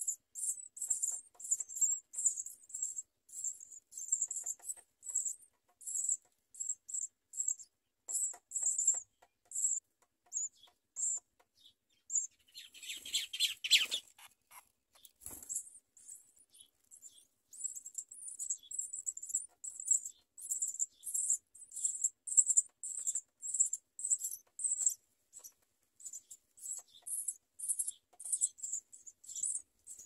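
Nestling birds' begging calls: rapid, high-pitched chirps repeated a few times a second. About halfway through, a brief flutter of wings breaks in, and the chirping pauses for a moment before starting again.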